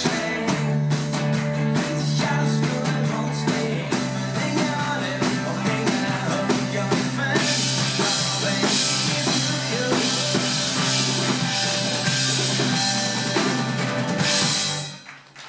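Live band playing the instrumental close of a pop-rock song on acoustic and electric guitars, piano and drums, the cymbals growing brighter in the second half. It stops on a final chord about a second before the end.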